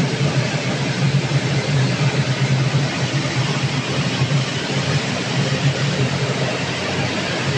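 Breadcrumb processing machinery running steadily, a constant low hum with an even hiss over it, as crumbs stream out of its stainless-steel chute.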